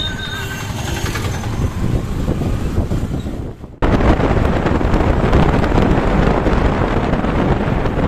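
Motorcycle running while being ridden, with a few short high tones in the first second or so. About four seconds in the sound cuts abruptly to a louder, steady rush of wind over the microphone with the engine and road noise underneath.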